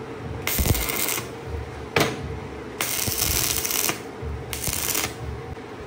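Stick arc welding: the electrode's arc crackling and sizzling in three short bursts, each under about a second, laying tack welds on steel. A sharp tap comes between the first two bursts.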